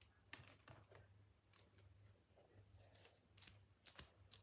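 Faint, irregular small clicks and light handling noises, about eight scattered through a few seconds, over a low, steady hum in a quiet room.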